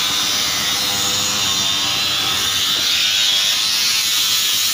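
Handheld electric grinder running steadily against a wooden window frame, a continuous high-pitched whine of a small fast motor.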